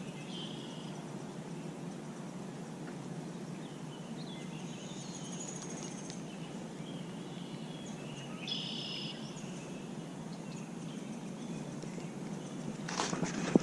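Steady outdoor background hiss with a few faint, high bird chirps scattered through it.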